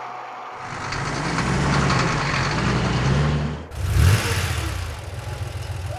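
Truck engine sound effect, revving as the vehicle pulls away. It cuts off abruptly about three and a half seconds in, and a second engine rumble with a brief rising-then-falling growl follows.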